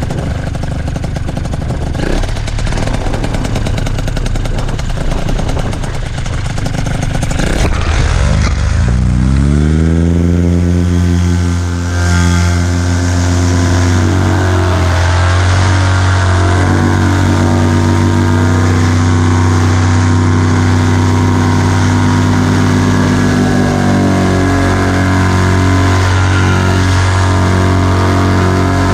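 Heavy wind buffeting on the microphone, then a paramotor engine revving up about eight seconds in, its pitch rising, and running steadily at high power with small shifts in pitch.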